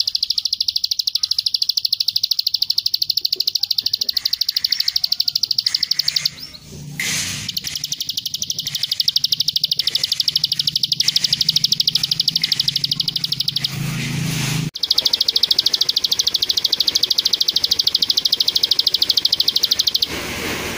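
Ciblek sawah (a small prinia) singing in long runs of fast, even, high-pitched repeated notes. The runs break off twice briefly and start again.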